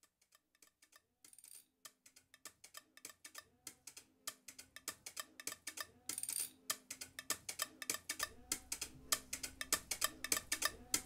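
Instrumental intro of a song: a quick, steady clicking percussion rhythm that builds and grows louder, with a bass line coming in partway through and filling out near the end, just before the vocals start.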